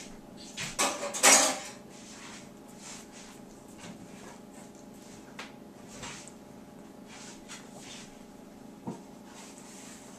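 A brief clatter of dishes and cutlery about a second in, then low room sound with a few faint clicks.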